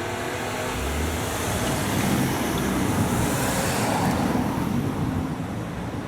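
Road traffic noise: a vehicle passing the crossing, its noise swelling about two to four seconds in and then fading.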